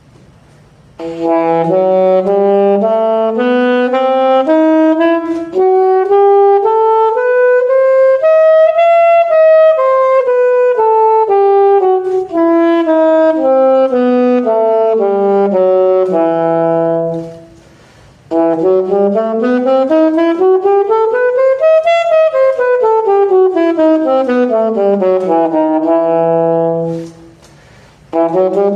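Saxophone playing a scale evenly note by note, about two octaves up and back down at a slow pace. After a short pause for breath it plays the scale up and down again, faster, and a third run starts near the end.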